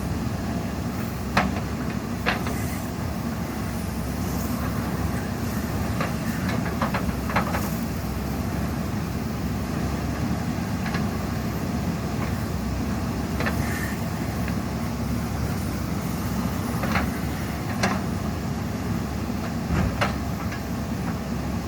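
JCB 3DX Super backhoe loader's diesel engine running steadily, with a few sharp knocks scattered through it.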